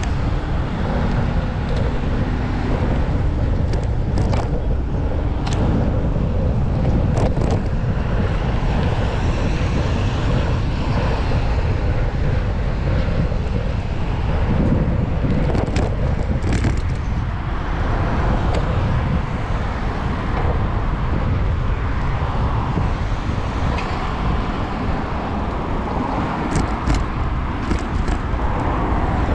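Steady rumble of wind and road noise on a bike-mounted GoPro's microphone during a bicycle ride along streets, with traffic going by and a few short clicks.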